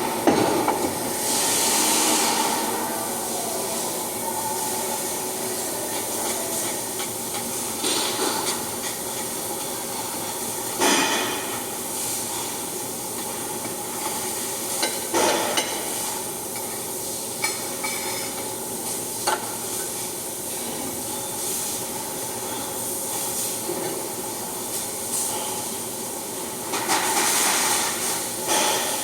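Flux-cored arc welding: the arc sizzles and hisses steadily, with a few sharper pops and crackles along the way.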